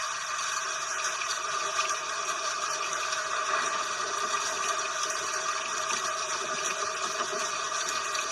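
Steady rain: an even hiss of falling rain with fine ticks of drops, without thunder.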